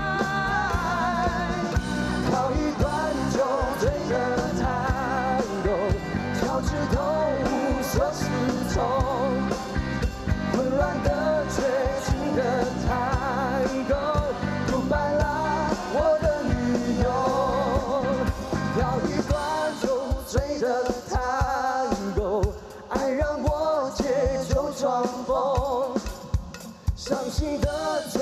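Male vocalist singing a slow tango ballad live over an amplified band, his voice held with a wide vibrato. About two-thirds of the way in the bass and drums fall away, leaving lighter accompaniment under the voice.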